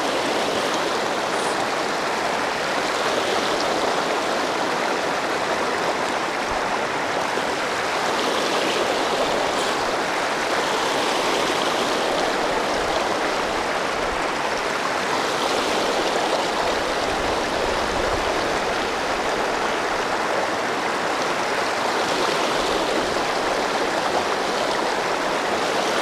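Mountain stream running steadily, an even rush of water.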